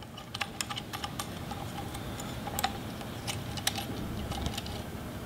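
Light, irregular clicks and ticks of small metal and plastic parts being handled as the steering wheel's start button and its retaining nut are worked loose by hand.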